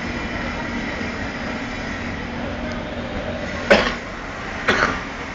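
A person coughing twice, about a second apart, over a steady background rumble.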